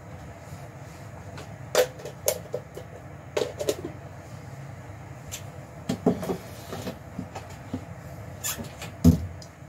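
Irregular light clicks and knocks of kitchen cookware around a covered pot simmering on the stove, over a low steady hum; the sharpest knock comes about half a second before the end.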